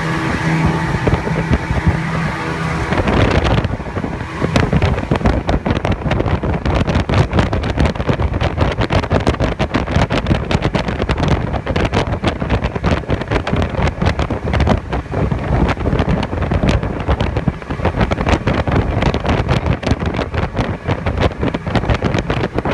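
Speedboat's Yamaha 150 outboard motor running at speed, a steady hum over rushing air. From about three seconds in, heavy wind buffeting on the microphone takes over and stays loud.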